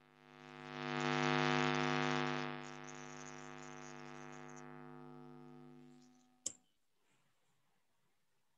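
Steady electrical hum with a buzzy, many-overtone edge, picked up through a call participant's microphone. It swells in over about a second, then slowly fades out, and ends with a single sharp click.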